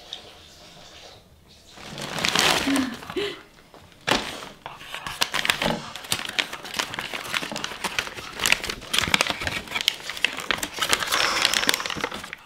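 Aluminium foil and paper sandwich wrapping being crinkled and unfolded by hand, a dense crackling that starts about two seconds in and carries on with a brief lull.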